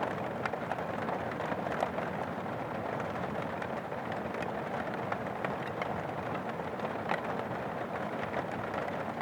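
Steady rain with many separate drops ticking sharply on an umbrella overhead, over the wash of rain on wet pavement.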